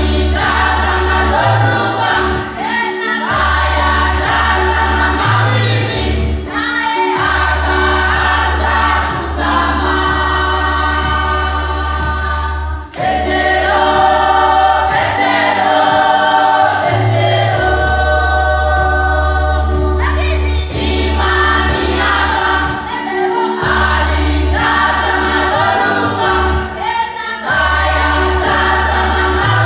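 Mixed church choir of men and women singing a gospel song together, over a deep bass line that holds each note and steps from note to note.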